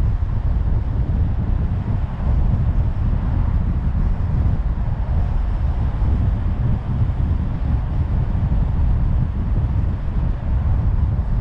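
Car driving at a steady speed: a continuous low rumble of road and wind noise, with wind buffeting the microphone.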